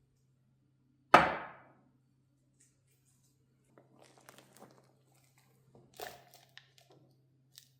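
A single sharp thunk about a second in, then faint scattered clicks and rustles of something being handled, over a faint low steady hum.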